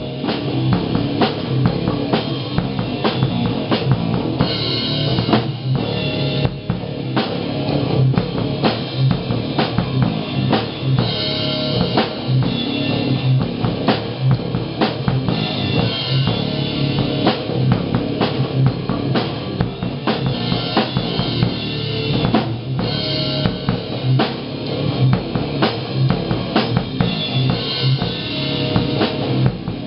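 Electric guitar playing rock riffs over a drum kit beat with bass drum, snare and cymbals, the drum hits coming thick and fast.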